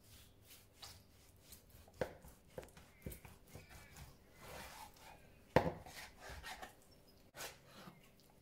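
Kitchen knife slicing through a block of corned beef, with several sharp knocks of the blade on a plastic cutting board as slices come free and a softer sawing sound between them. The loudest knock comes a little past halfway.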